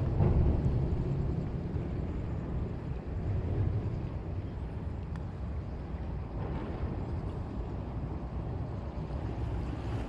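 Steady low rumbling background noise, a little louder in the first second or so.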